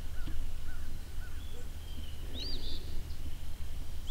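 Outdoor ambience with a bird calling: a few faint short calls, then a louder chirp that rises and falls about halfway through, over a steady low background rumble.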